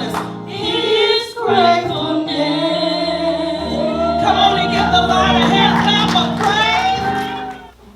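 Gospel worship song: several voices singing over steady held keyboard chords, the music dying away just before the end.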